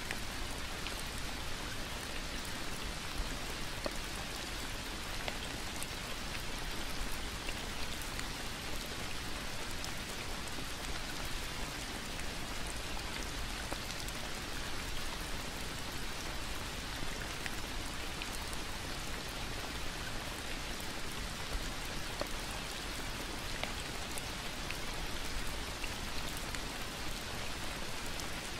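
Steady rain falling on dense foliage and a wet path, an even hiss with single drops ticking here and there.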